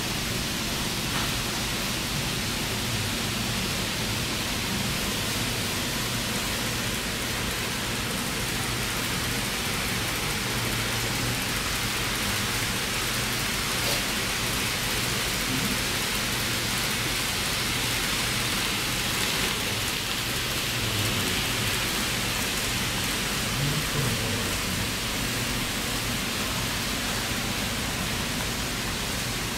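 Steady, even hiss with a faint low rumble that swells and fades underneath: N-gauge model trains rolling along the layout's track.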